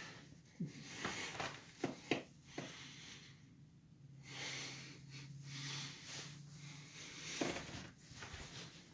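Faint breathing and sniffing close to a phone's microphone, with a few soft clicks and rubs as the phone is handled.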